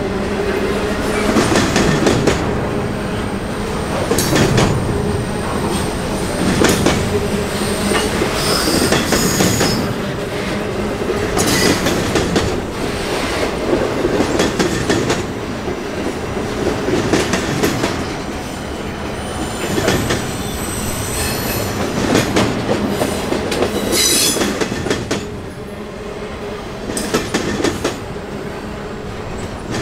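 Railroad cars rolling past, wheels clacking over rail joints, with high-pitched wheel squeal that comes and goes, typical of cars taking the curve of a wye.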